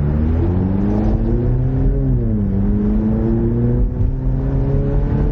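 Ford Mustang EcoBoost's turbocharged four-cylinder engine accelerating hard. Its pitch climbs, drops at an upshift about two seconds in, then climbs again through the next gear.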